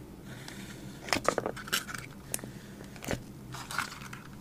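Small paper craft pieces being handled by hand: a few light taps and clicks with faint rustling, clustered about a second in and again near three seconds.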